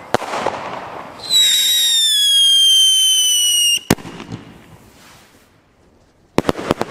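A consumer firework battery firing. A crackling hiss gives way to a loud whistle of about two and a half seconds, slowly falling in pitch, which cuts off into a sharp bang. Near the end come a few quick sharp cracks.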